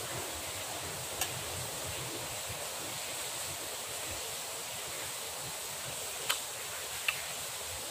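Steady hiss of falling rain, with three short sharp clicks, one about a second in and two near the end.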